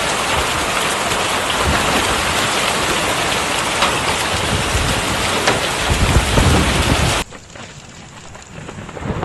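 Heavy storm downpour pelting down in a dense, steady hiss, with a low rumble about six seconds in. The sound cuts suddenly to a much quieter patter about seven seconds in, then builds up again near the end.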